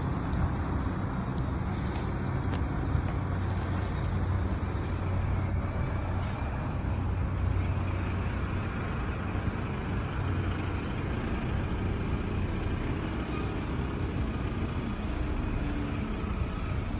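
Steady road traffic noise from nearby city streets: a continuous low rumble of passing vehicles.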